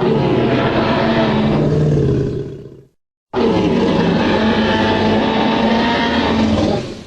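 Tyrannosaurus rex roar sound effect, heard twice: a roar of about three seconds that fades out, a short silence, then a longer roar of about three and a half seconds that also fades away.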